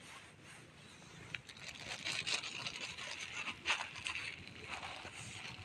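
Close rustling and scraping of fur as a hand strokes a black cat that rubs up against the phone, with a few sharp clicks; the rustling starts about a second and a half in.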